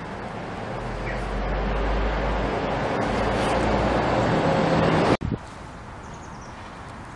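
Road traffic on a street: a broad rushing noise with a low rumble that builds for about five seconds and then cuts off suddenly, leaving a quieter steady outdoor background.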